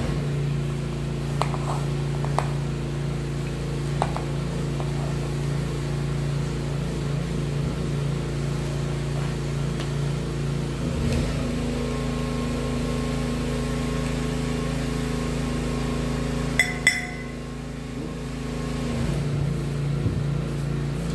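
Steady machine hum made of several steady tones, its pitch pattern shifting about 11 seconds in. A few light clicks come early, and a sharp double clink with a brief ring comes about 17 seconds in.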